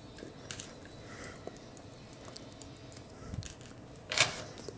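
Faint clicks and handling of a small plastic action figure as its face part is worked by hand, then one short, louder rustling scrape about four seconds in.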